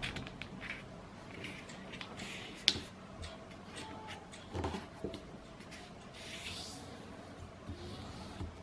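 A square of origami paper being folded and creased by hand on a tabletop: soft rustles and crinkles with scattered light taps, and one sharp tap nearly three seconds in that is the loudest sound.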